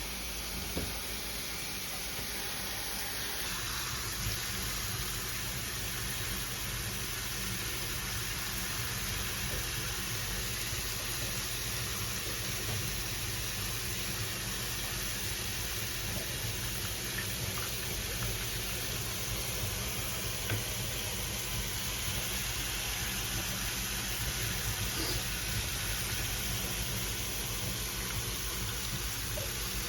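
Shower running: a steady hiss of spraying water that fills out a little about four seconds in, with a few faint knocks.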